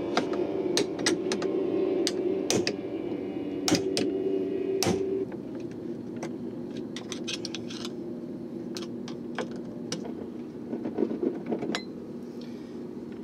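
Scattered sharp metal clicks and taps as a small screwdriver pries the gear plate off a Barient 28 winch's gearbox, working it loose evenly. Under them is a steady low hum, louder for the first five seconds.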